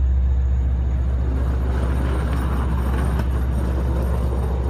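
Diesel-hauled Long Island Rail Road train idling at a station platform: a steady low drone from the diesel engine, with faint higher noise swelling and fading in the middle.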